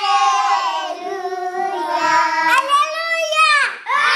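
A small group of young children singing together in high voices, holding long notes, with a brief break about three and a half seconds in.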